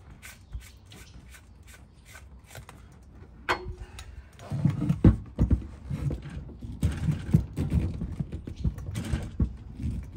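Hard plastic twist-lock shore-power plugs and yellow cord clicking, scraping and knocking as they are worked into a boat's shore-power inlet. Light ticks at first, a sharp click about three and a half seconds in, then a run of louder knocks and rubbing.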